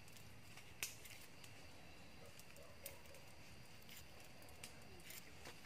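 Near silence: a faint steady background hiss, with a few soft, separate clicks as a folding knife cuts flesh from a skinned small-game carcass.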